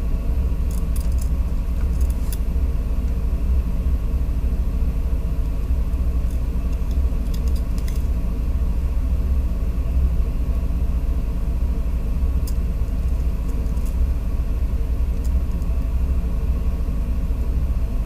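Steady low background rumble with a few faint, scattered ticks over it.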